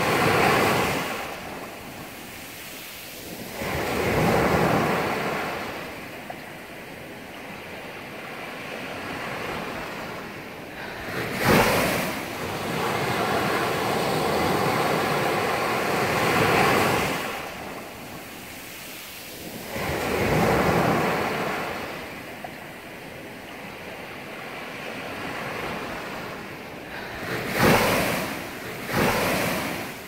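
Small waves breaking at the shore and washing up the sand, the surf swelling and fading every four to five seconds, with two sharper, louder breaks.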